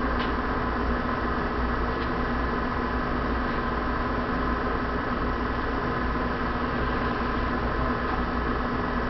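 HO scale freight cars rolling along the layout track: a steady mechanical hum and rumble with a few faint clicks.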